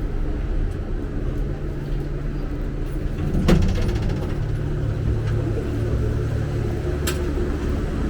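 Steady low vehicle rumble, with a short knock about three and a half seconds in and a sharp click near the end.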